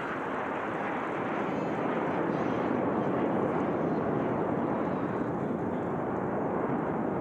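Frecce Tricolori Aermacchi MB-339 jets flying past, a broad rushing jet roar that swells over the first three seconds and then holds.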